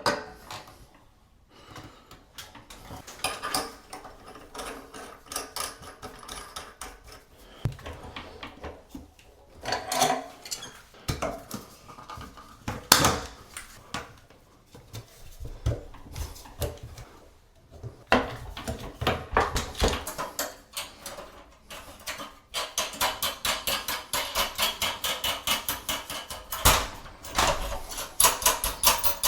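Hand work noises: scattered knocks, clanks and scrapes, then a long run of quick, regular clicks in the last quarter.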